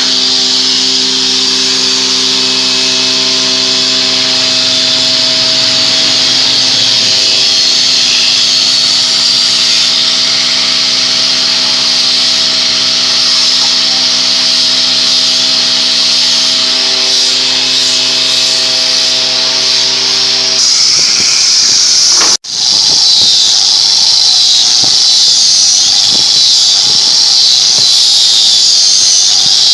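Woodworking power machine running steadily, a loud high hiss over a steady motor hum. The sound drops out sharply for a moment about 22 seconds in, then carries on.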